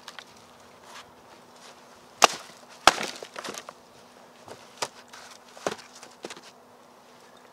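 Dry wooden sticks snapping, two sharp cracks about two-thirds of a second apart, followed by several lighter knocks and cracks as branches are set down on a pile of firewood.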